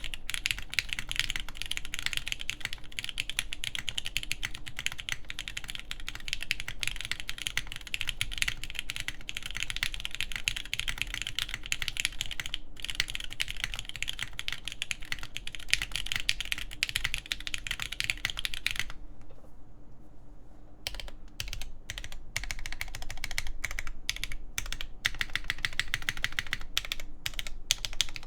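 Fast typing on a TKD Pt 1/75 mechanical keyboard with lubed Everglide Tourmaline switches, a forged carbon fiber plate and GMK keycaps, the keystrokes running together into a dense stream. About two-thirds of the way through it pauses briefly, leaving only a few separate keystrokes, then picks up again.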